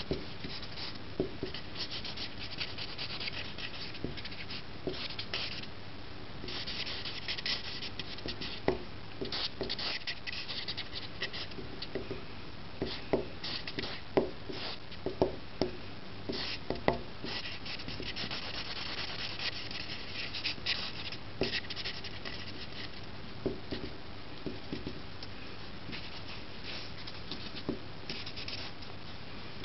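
A broad-tipped marker scratching and rubbing across paper in quick bursts of strokes, with sharp taps as the tip is dabbed onto the page, most of them in the middle of the stretch.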